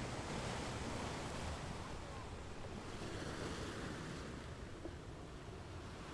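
Steady rushing of wind and lake water, with wind buffeting the microphone.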